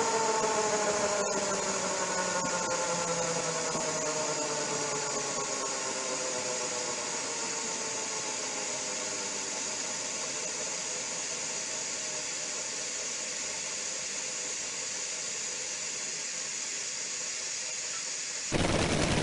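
Onboard audio of a Top Fuel nitro Funny Car slowing after an engine explosion: a whine falls steadily in pitch and fades into a steady hiss. Near the end a louder rush of noise starts suddenly.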